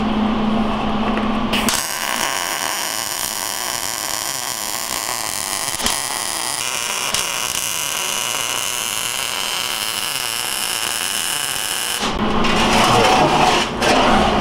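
MIG welder welding steel jig pieces: a short weld with a low buzz, then a longer steady sizzling arc that stops about 12 s in. After it, steel plate being shifted and scraped on the steel bench.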